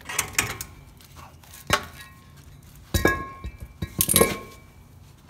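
A Ford F-250 Super Duty's front brake rotor and hub assembly sliding off the wheel spindle and being handled, giving several sharp metal clinks and knocks. A few of them ring briefly, and the loudest come about three and four seconds in.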